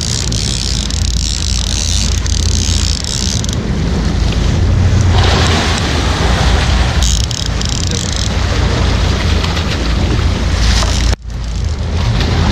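Wind buffeting the microphone and water rushing along the hull of a moving boat, over a steady low engine rumble. The sound drops out for an instant near the end.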